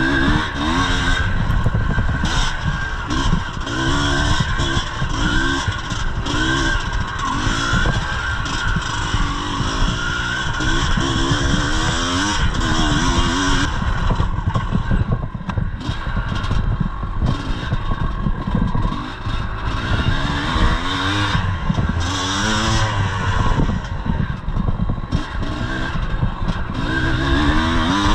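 1983 Yamaha IT 250's two-stroke single-cylinder engine being ridden hard, its pitch rising and falling every second or so as the throttle is worked on and off.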